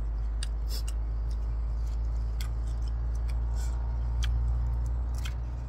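Dry tamarind pod shells cracking and being peeled by hand: scattered sharp clicks and snaps over a steady low rumble.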